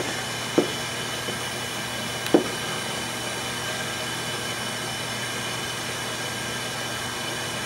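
German shepherd and golden retriever puppy play-mouthing on carpet: three short sharp sounds in the first two and a half seconds, then only a steady hiss and hum.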